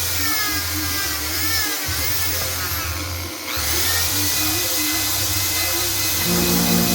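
Electric drill spinning a valve through a hose pushed onto its stem, lapping it into the LQ4 cylinder head's valve seat with grinding compound. The motor whine rises and falls as the speed changes, stopping briefly about two seconds in and again about three and a half seconds in.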